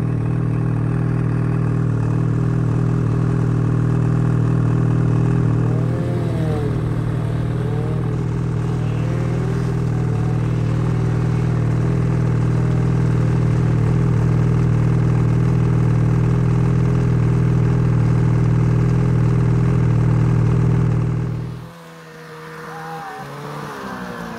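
Snowmobile engine running at a steady speed. About three-quarters of the way in it cuts to a quieter snowmobile engine that rises in pitch as the sled climbs.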